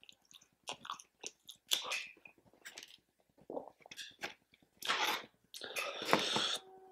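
A person chewing food with irregular wet mouth clicks and crunches, busier about five seconds in.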